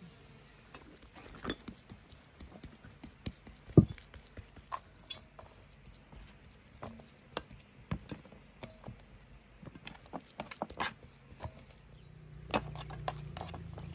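Scattered light taps and clicks of hand food preparation at a table, with one sharper knock about four seconds in. A steady low hum comes in near the end.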